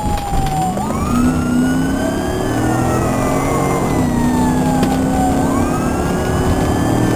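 Police siren in wail mode, rising and falling in slow sweeps about four to five seconds long.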